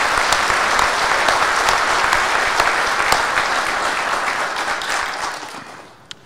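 Audience applauding, a steady wash of many hands clapping that dies away about five seconds in.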